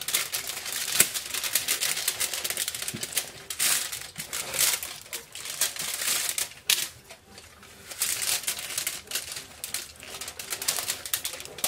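Aluminium foil crinkling and crackling in irregular small clicks as a whole fish is handled on it and stuffed with lemongrass stalks.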